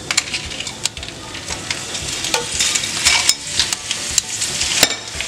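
Dried chilies (ancho, pasilla and morita) sizzling as they are laid into hot oil in an enamelled skillet, with repeated short clicks of metal tongs against the pan as they are placed and turned.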